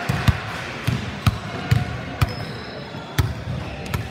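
Basketballs bouncing on a hardwood gym floor as they are dribbled: a string of uneven thuds, about two a second, each with a short echo.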